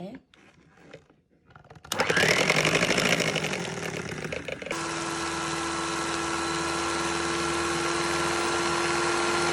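Electric hand mixer switched on about two seconds in, its motor whine rising as it spins up, then running steadily from about halfway while beating a cream cheese filling.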